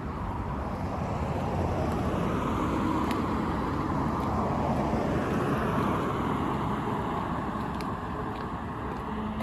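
Road traffic: a car passing on a street, its tyre and engine noise swelling over a couple of seconds and then fading.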